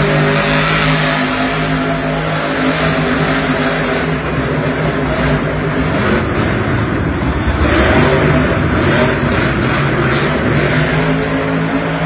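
Monster truck engines running loud and revving, the engine note steady, then climbing and falling as a truck accelerates over the jumps near the middle, then steady again near the end.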